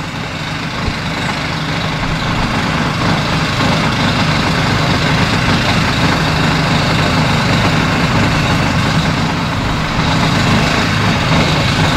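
A vehicle engine running steadily, heard through a shotgun microphone; it grows a little louder over the first couple of seconds.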